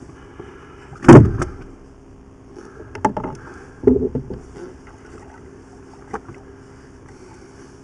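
Knocks and clatter of a fishing rod and gear being handled aboard a rigid inflatable boat: a loud thump about a second in, sharp clicks near three seconds and a quick run of knocks near four seconds, over a steady low hum.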